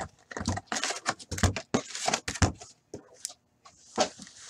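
Shiny-wrapped Fleer Ultra hockey card packs being handled and laid into piles on the table: a quick run of light taps and crinkles from the wrappers, thinning to a few ticks after about two and a half seconds.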